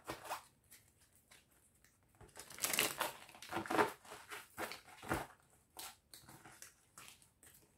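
Deck of tarot cards being handled: a run of short, faint papery rustles and taps, the loudest a little under three seconds in.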